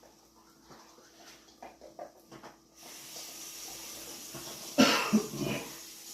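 Bulldog puppy giving a short run of loud, breathy bursts about five seconds in, after a few light clicks.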